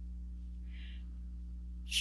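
Steady low electrical hum with a faint, brief soft hiss about three quarters of a second in.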